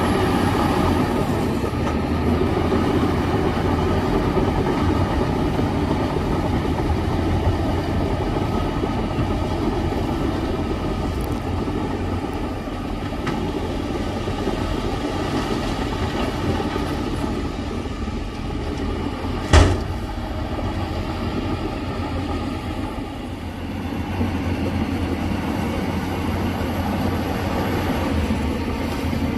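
Shantui crawler bulldozer's diesel engine running steadily under load, with its steel tracks clanking and rattling. One sharp metallic knock about two-thirds of the way through.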